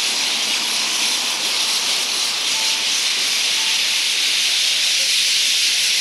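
A large flock of roosting birds calling all at once: a dense, steady, high-pitched wash of chirping.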